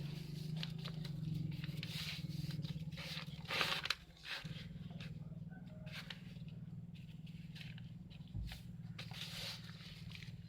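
Sheet of paper rustling and crinkling in short bursts as it is folded and creased by hand, over a steady low hum.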